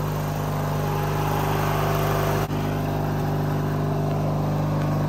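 Riding lawn mower engines running steadily at a constant speed, without revving.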